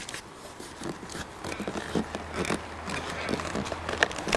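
Fingers working a Yamaha R1 exhaust-valve servo cable out through plastic body panels: scattered light scrapes, rustles and clicks of handling close to the microphone.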